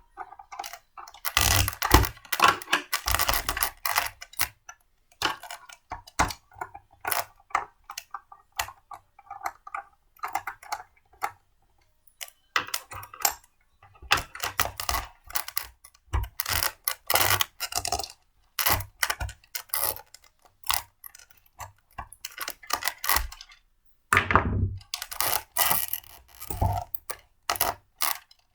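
Irregular clicks, knocks and clatter of blender parts being handled and fitted together, coming in runs with short pauses between them.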